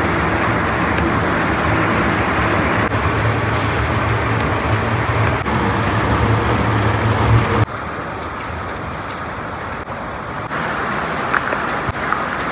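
Steady outdoor noise of road traffic and rain, with a low rumble underneath. The sound drops suddenly to a quieter level about eight seconds in, as the low rumble stops.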